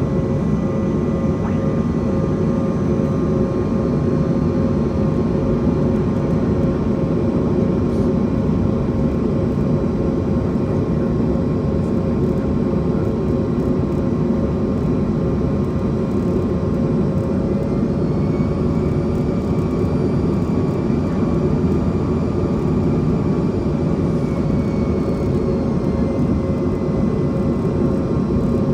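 Cabin noise inside a Bombardier CRJ-200 regional jet in flight: a steady roar from its rear-mounted General Electric CF34 turbofans and the airflow, with several steady engine tones over it.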